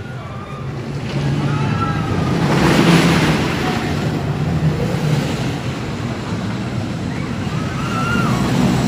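Lightning Rod RMC wooden roller coaster train running past on its track, a loud rumble that builds to its loudest about three seconds in and stays loud before easing off near the end.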